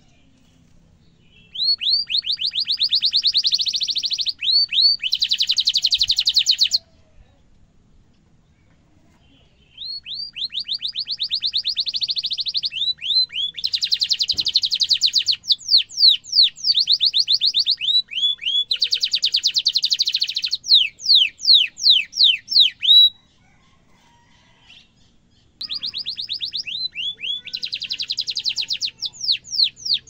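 Domestic canary singing long rolling trills. The song comes in three bouts of rapid repeated notes mixed with sharp chirps that sweep downward in pitch, with pauses of a few seconds between the bouts.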